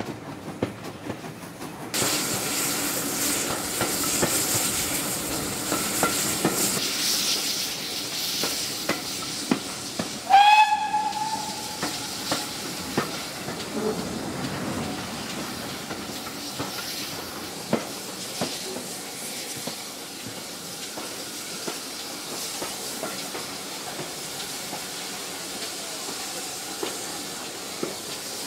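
Steam-hauled heritage train heard from an open carriage window: running with a steady hiss from about two seconds in, one short steam whistle blast about ten seconds in, and scattered clicks of the wheels as it draws into a station.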